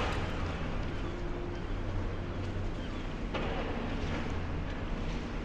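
Steady low rumble of heavy demolition machinery working on site, with wind noise on the microphone.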